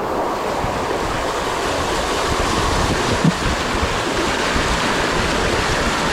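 Steady rush of water, like surf or a water slide's flow, with no pitched sound in it and one brief low bump about halfway through.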